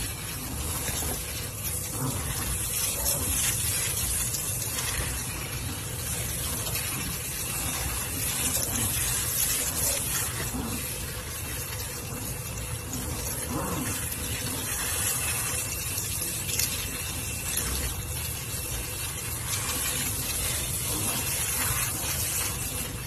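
Water running steadily from a kitchen sink's pull-down sprayer, splashing over two puppies and into the sink.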